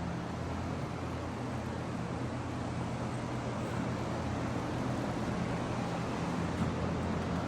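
An engine running steadily at idle, a constant low hum with even background noise.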